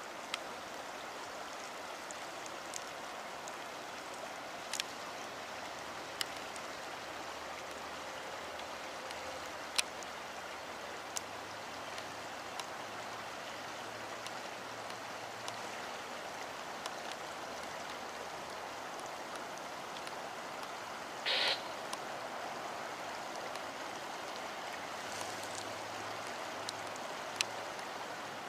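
Steady rushing background noise, with scattered sharp clicks and one short, louder scrape about two-thirds of the way through.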